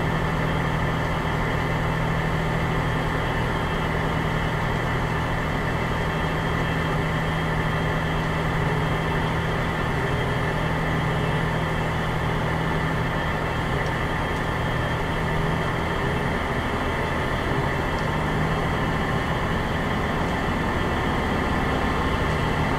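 Fire engine's diesel engine running steadily at idle, a constant low hum heard from inside the cab.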